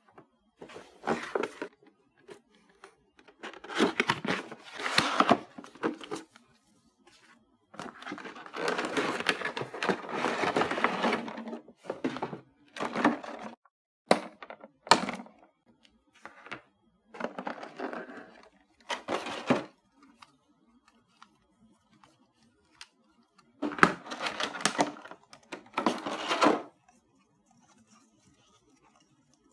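Toy packaging being opened: a clear plastic blister tray and cardboard box crinkling and rustling in irregular bursts, with a couple of sharp scissor snips cutting the plastic ties about halfway through.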